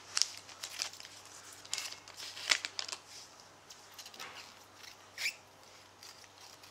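Select NRL Strike trading-card packet, its top already cut, crinkling as the cards are slid out and handled: a run of short rustles and crinkles, the loudest about two and a half seconds in.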